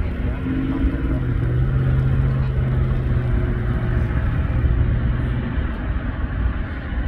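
Airliner jet engines rumbling steadily across the airfield, with a low hum that holds through the middle and then fades.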